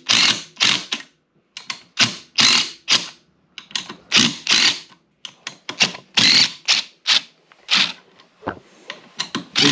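DeWalt 20V XR cordless impact driver with a T40 Torx bit hammering in a string of short trigger bursts, about a dozen, backing out the handlebar clamp bolts on a snowmobile's risers.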